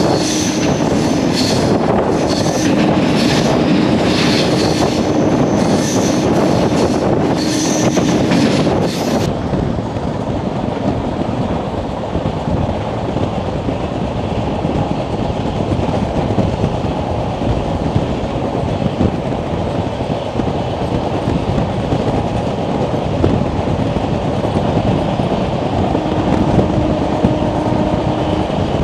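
Double-decker express train running at speed, heard at an open coach door: wheels clattering over rail joints and points for the first nine seconds or so, then a steady rush of wheel and wind noise. A faint steady whine sits under the clatter at the start and comes back briefly near the end.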